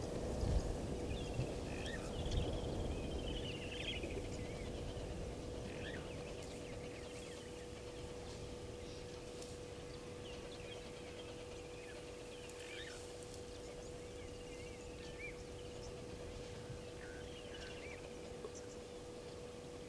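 Outdoor ambience: scattered bird chirps and short wavy whistled calls over a steady faint hum. Low rumbling noise in the first few seconds dies away.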